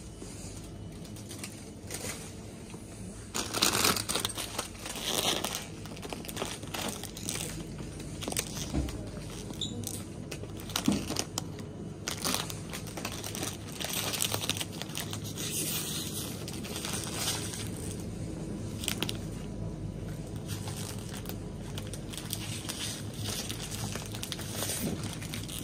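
Plastic snack bags crinkling as they are picked up and handled, in irregular bursts, over a steady low hum.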